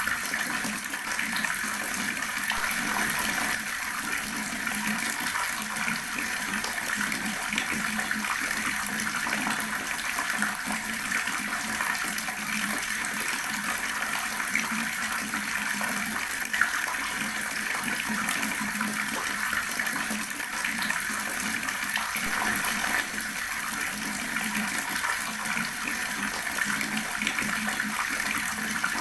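Water tap running in a steady, unbroken stream.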